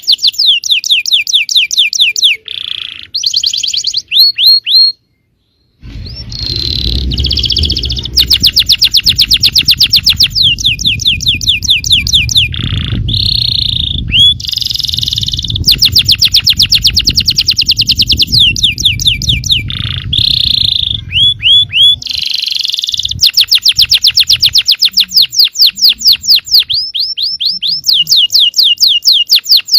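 Yellow domestic canary singing long fast trills and rolls of rapidly repeated notes that sweep down in pitch. The song breaks off briefly about five seconds in, and a low rumble runs under it for much of the middle stretch.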